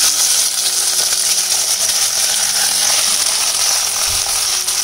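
Sliced ivy gourd (kovakkai) sizzling steadily in hot oil in a kadai as the slices are tipped in from a bowl.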